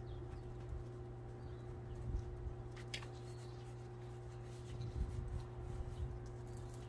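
A towel rubbing a dog's coat after its bath, with soft scratchy rubbing and a few low thumps of handling, over a steady low hum.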